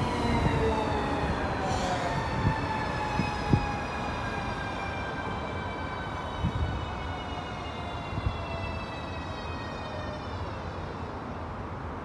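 ES2G "Lastochka" (Siemens Desiro RUS) electric multiple unit braking into a station: its traction motors whine in several tones that fall steadily in pitch as it slows. Under the whine is a rumble of wheels on rails with a few knocks. The whine fades out near the end as the train comes to a stop.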